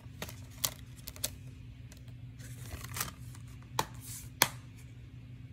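Plastic DVD case being closed and handled: a series of sharp plastic clicks and scraping rustles, the loudest click about four and a half seconds in, over a faint steady low hum.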